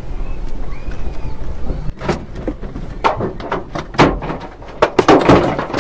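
Low rumble of an earthquake shaking a building. From about two seconds in come many sharp, irregular knocks and clatters of things banging against one another.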